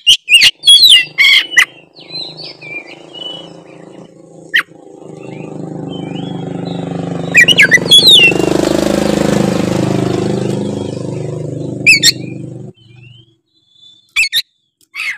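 Oriental magpie-robin (kacer) singing loud, sharp whistled phrases in short bursts. A motor vehicle's engine drone swells under it through the middle, its pitch shifting as it passes, then cuts off suddenly near the end.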